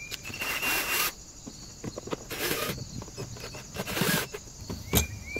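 Cordless drill-driver running in three short spurts about a second and a half apart, driving screws back into the plastic housing of an electric sprayer, with a sharp click near the end.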